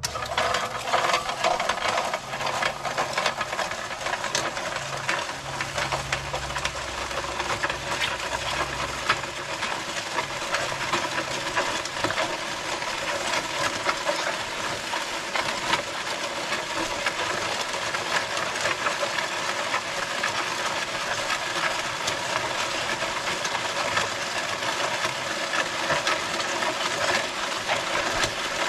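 MudMixer portable auger concrete mixer switched on and running steadily, its motor and auger churning gritty concrete mix as it feeds out of the discharge chute. The sound starts suddenly right at the beginning and holds steady, a grinding hiss over a low hum.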